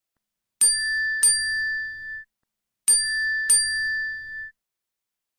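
Bell-like ding sound effect: a quick double ding, struck twice about two-thirds of a second apart and ringing out for about a second, then the same double ding again about two seconds later.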